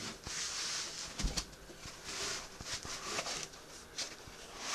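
Foam packing and cardboard rubbing and scraping as tightly packed speaker panels are worked out of a box, in several short hissing scrapes, with a dull thump about a second in.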